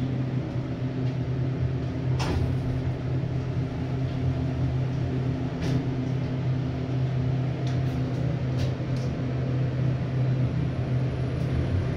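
Phoenix Modular traction elevator: a steady low hum inside the car as the doors close and it travels between floors, with a few light clicks.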